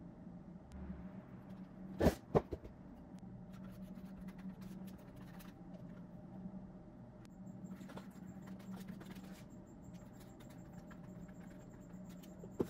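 Small workbench handling noises: two sharp knocks about two seconds in, then light scratching and tapping as gasket sealant is brushed on from a brush-cap bottle, over a faint steady hum.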